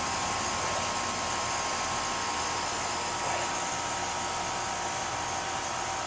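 Newly installed Rheem 3-ton R-410A condensing unit running steadily: an even rush of air from the condenser fan with a faint steady whine, the system charged and working.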